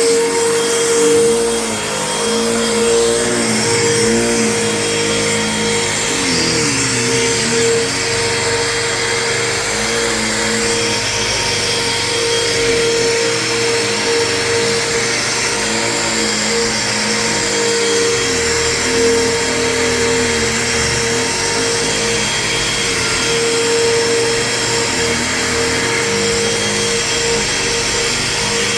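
Vacuum cleaner running continuously over carpet. Its motor gives a steady whine, with lower tones that waver up and down as it works.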